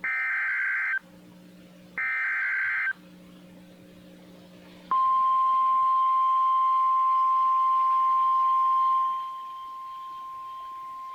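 Emergency Alert System SAME header: two roughly one-second bursts of warbling digital data tones, a second apart. About five seconds in, the NOAA Weather Radio warning alarm tone follows, a loud steady single tone near 1050 Hz that drops to a lower level about nine seconds in.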